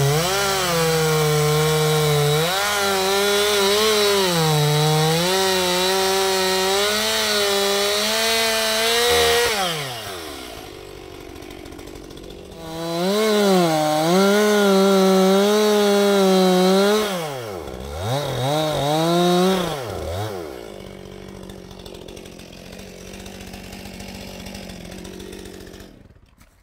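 Chainsaw running at high revs, its engine note dipping and recovering as under cutting load, then dropping off about ten seconds in. It revs up again for a few seconds, rises and falls briefly twice, and settles much quieter.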